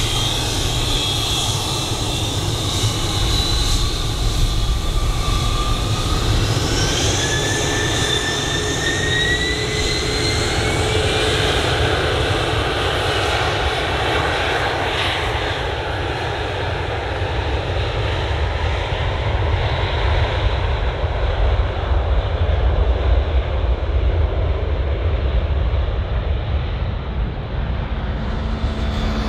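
Gulfstream business jet's twin turbofan engines running close by as it taxis, a steady roar with a high whine. From about five seconds in the whine rises in pitch over several seconds as the engines spool up.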